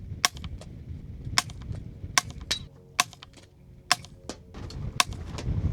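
Suppressed .22 LR rifle fire through a Lone Wolf Arms Eliminator22 suppressor with Winchester Super Suppressed subsonic ammunition: a string of sharp, fairly quiet reports roughly a second apart, each followed by a fainter tick.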